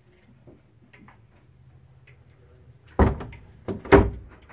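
Wooden louvred locker door in a boat cabin being swung shut, with two sharp knocks about a second apart near the end as it closes and latches. Faint small clicks come before them.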